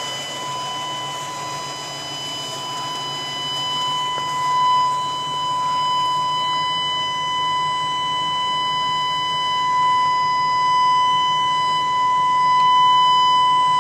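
Chevy 3500 truck's door-open warning buzzer sounding one steady, unbroken high buzz because a door is open with the engine running. The engine idles low underneath it.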